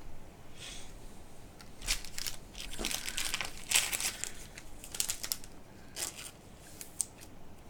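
Crinkling and rustling of trading-card packaging being handled, in irregular bursts that are busiest in the middle.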